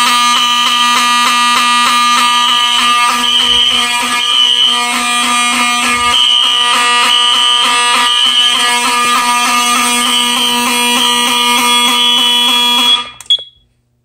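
Fire alarm horns, a Wheelock 7002 and a Wheelock Exceder HSR horn-strobe, sounding together in general alarm after a heat detector was tripped: pretty loud, a steady horn tone mixed with a fast pulsing pattern. They cut off suddenly about 13 seconds in.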